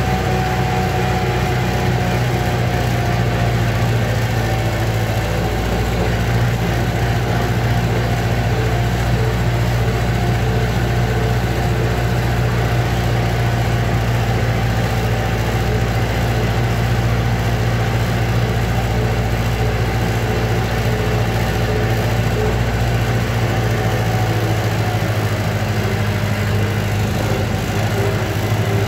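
Vintage tractor engine running steadily while driving, heard from the driver's seat.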